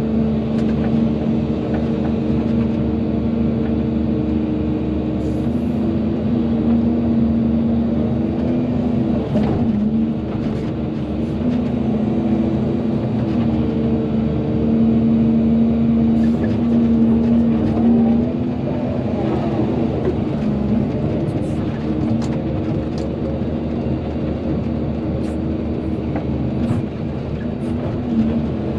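Volvo EC220DL excavator's diesel engine running steadily under hydraulic load, its note easing and swelling as it works, with scattered short knocks from the machine.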